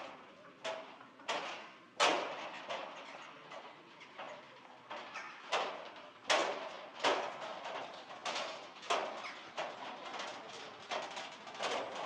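Footsteps on a hard stone path, uneven in loudness, a step roughly every half second to second.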